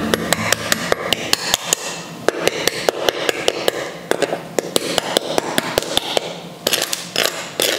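Knife tapping the hard, blistered crackling of roast pork belly: quick, irregular crunchy taps, several a second, a sign that the skin is crisp.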